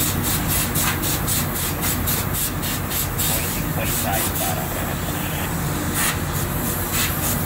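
Quick rhythmic rubbing strokes, about five a second for the first three to four seconds, then a few scattered strokes, as hands work on the parts of a dismantled electric fan motor. Under them runs a steady low machinery hum.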